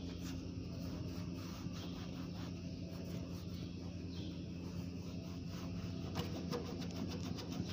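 Foam sponge rubbing back and forth over a car's textured plastic windshield cowl, a faint scratchy scrubbing, with a run of small clicks and scrapes near the end. A steady low hum runs underneath.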